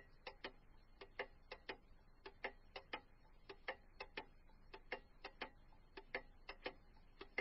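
Countdown timer sound effect: faint clock-like ticking, about three ticks a second, often in close pairs.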